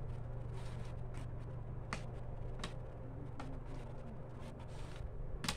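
Hands handling filled plastic bottles bound with string: a few scattered clicks and taps, the sharpest near the end, over a steady low hum.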